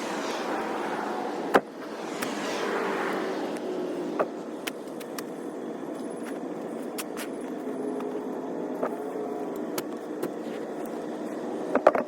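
Steady motor-vehicle noise with a few sharp knocks, the loudest about a second and a half in and another cluster near the end.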